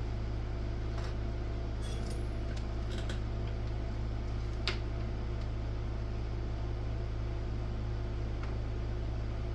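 Steady low electrical hum with a few faint, short clicks and ticks from small hand tools and fine headphone wire being handled.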